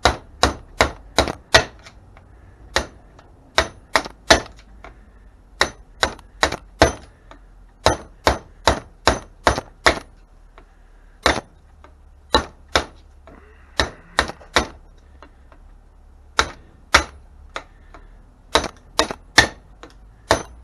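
Hammer blows on metal, struck in quick runs of three to six with short pauses between, each a sharp ringing clank: knocking the copper windings out of a microwave oven transformer's iron core.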